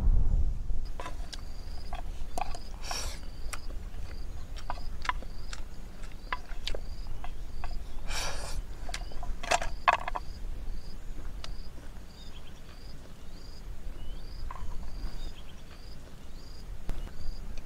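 Chopsticks clicking and scraping against a metal bowl as fried rice is eaten, with a few longer scraping bursts as the bowl is tipped up to the mouth. A faint high chirp repeats about twice a second in the background.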